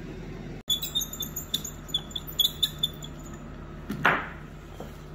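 A hand handling a PVC curtain-side tarpaulin: a run of small, light clicks and crackles, then one louder rustle about four seconds in, over a steady low hum.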